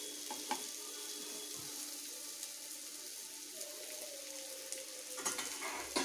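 Egg and vegetables sizzling as they fry in oil in a pan, with a spatula stirring; a few knocks and scrapes of the spatula against the pan near the end.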